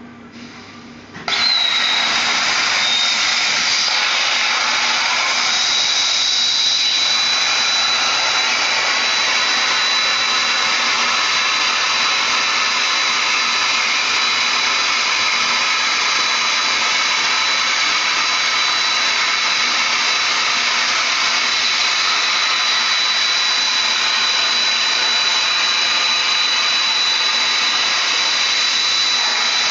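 Hypertherm 130 plasma torch on a Farley CNC cutting machine striking its arc about a second in, then cutting 25 mm mild steel plate with a loud, steady hiss and a thin high whistle over it.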